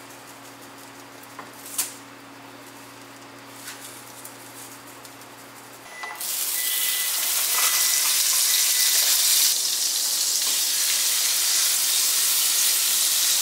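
A few light knocks and clicks, then about six seconds in butter hits a hot frying pan and starts sizzling loudly. The steady sizzle goes on as a thick ribeye steak fries in the butter.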